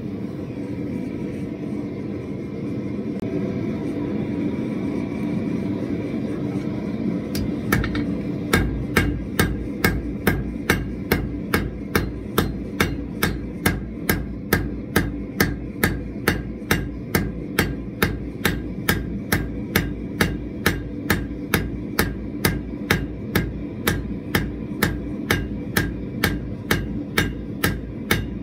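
A hand hammer striking red-hot steel on an anvil in an even rhythm, about two blows a second, starting about eight seconds in. Under it runs the steady rush of a gas forge burner.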